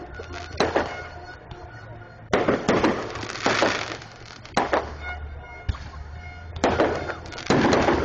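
Fireworks going off: a string of sharp bangs, some close together, each followed by a crackling decay, at irregular intervals.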